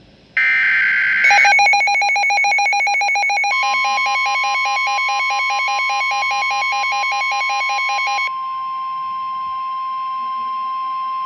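Emergency Alert System alert tones for a severe thunderstorm warning. A short harsh electronic burst is followed by rapid pulsing beeps, and about eight seconds in these give way to one steady high tone.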